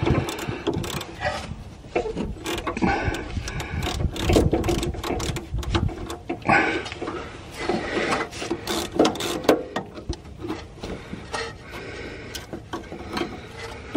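Hand ratchet clicking in irregular runs of short clicks as a corroded nut is worked off the suspension height-sensor link.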